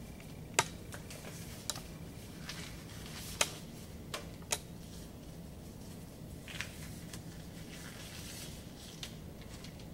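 Disposable exam gloves being pulled on: several sharp snaps of the glove cuffs in the first five seconds, then softer rustling of the gloves on the hands.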